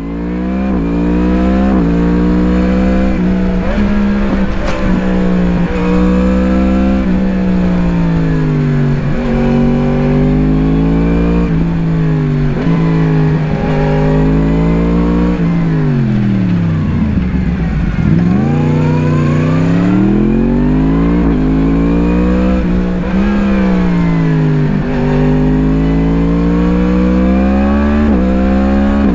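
2017 Yamaha MT-10's crossplane inline-four through an Akrapovič slip-on exhaust, heard onboard while riding. The engine pitch repeatedly climbs as it accelerates and falls as it shifts or backs off. About halfway through it drops low and then pulls back up. The sound fades in at the very start.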